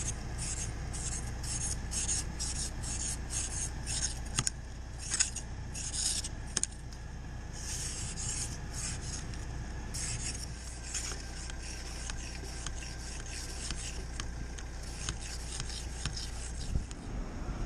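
Close rustling and rubbing against the microphone, in rhythmic rasping strokes about two to three a second, with a few sharp clicks, over a steady low hum that stops near the end.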